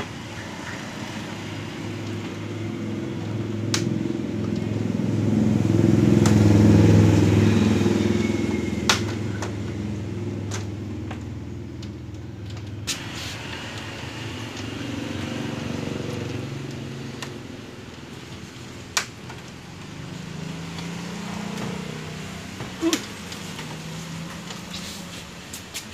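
A motor vehicle's engine rumble swells to a peak about seven seconds in and fades away, as a vehicle passes, with weaker swells later on. A few sharp clicks and taps come from hands handling the TV's backlight panel and its sheets.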